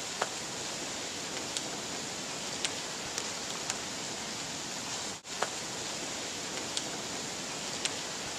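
Steady hiss of heavy thunderstorm rain, with scattered sharp ticks of drops striking close by. The sound cuts out for an instant about five seconds in.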